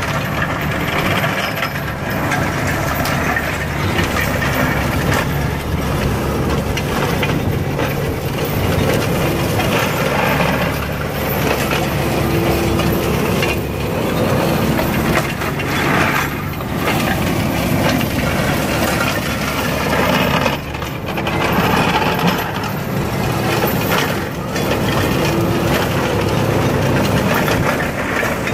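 A tractor engine running steadily while the two flail heads of a WMB forest flail mower spin and chop through shrubs and young growth. The sound is a continuous mechanical din that dips briefly now and then.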